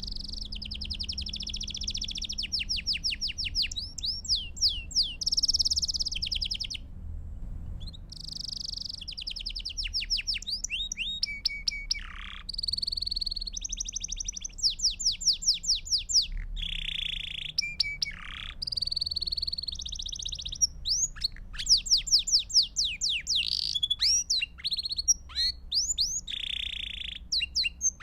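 Belgian canary singing: rapid trills of repeated notes and buzzy rolls, each phrase lasting a second or two before switching to another, with short gaps between.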